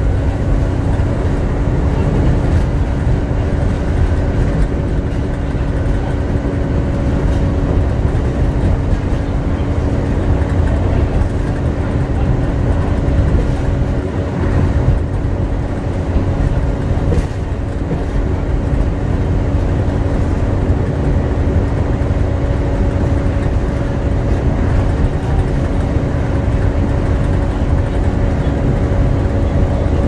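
Volvo B7TL double-decker bus heard from inside the lower deck while driving at a steady speed: the engine's low rumble with a constant vacuum-cleaner-like whine, the "hoover" sound these buses are known for. The loudness dips a little about halfway through.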